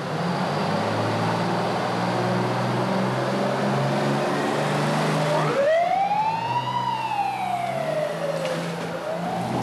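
Fire truck engine running as the ladder truck pulls out, then its siren starts about five seconds in: one slow wail that winds up, falls away over a couple of seconds, and begins rising again near the end.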